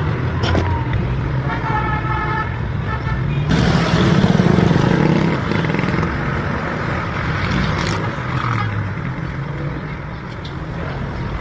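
Car engine running with a misfire, which is put down to a faulty ignition coil; it gets louder for a couple of seconds around four seconds in.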